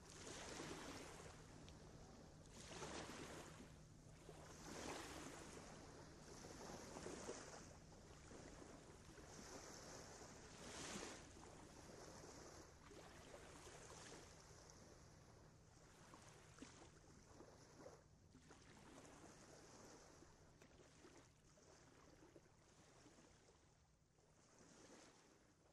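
Faint field recording of Lake Michigan waves, a wash of water swelling and falling away every couple of seconds, fading out near the end.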